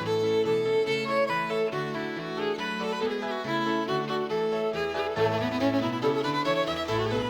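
Instrumental background music led by a fiddle, playing a quick melody of short notes over a lower accompaniment.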